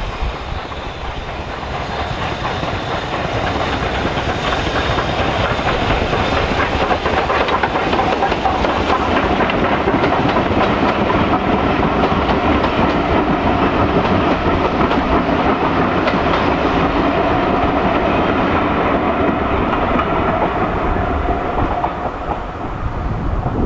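BR Standard Class 4MT 2-6-0 steam locomotive hauling a passenger train past, working uphill under steam, with the coaches' wheels clattering over the rail joints. The sound builds over the first few seconds as the train draws near, holds while it passes, and eases near the end.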